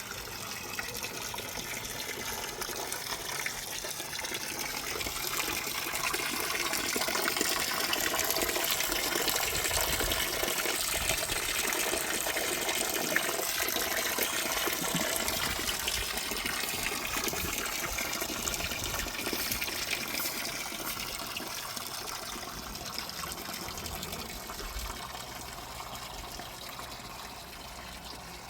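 Water gushing and splashing steadily as it is poured out to soak something, getting louder toward the middle and easing off near the end.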